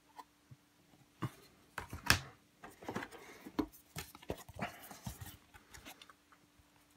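Cardboard game boards and pieces being handled and lifted out of a board-game box: scattered light knocks, scrapes and rustles, the sharpest about two seconds in.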